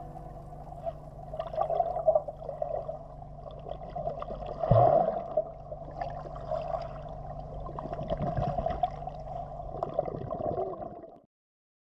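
Muffled underwater pool sound picked up by a submerged camera: a steady water rush with gurgling and bubbling. The loudest burst comes about five seconds in, and the sound cuts off abruptly near the end.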